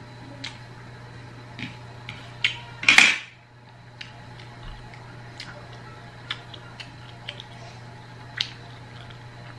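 Eating round scad fish by hand from a plate: scattered small clicks and taps as fingers pick the bony fish apart, with one louder clatter about three seconds in. A steady low hum runs underneath.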